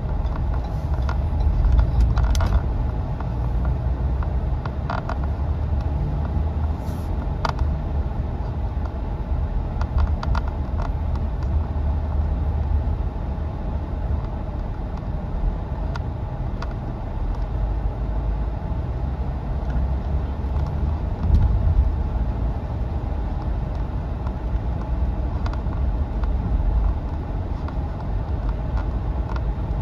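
Steady low rumble of a car on the move, engine and road noise together, with a few light clicks and knocks in the first several seconds.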